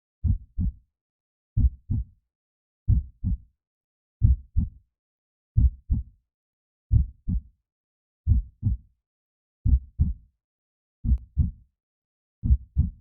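Heartbeat sound: a steady, slow lub-dub double thump repeating about every 1.4 seconds, low and dull, with silence between beats.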